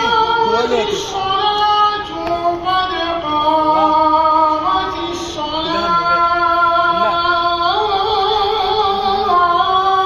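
A single high voice singing or chanting a slow, melismatic melody in long held notes that step up and down in pitch.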